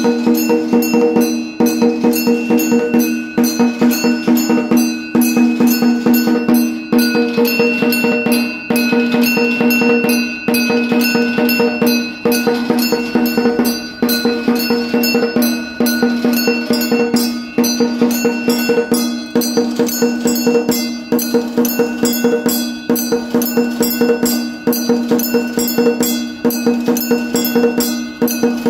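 Temple bell rung rapidly and continuously, its clapper striking several times a second, with the bell's ringing tone sustained beneath the strikes.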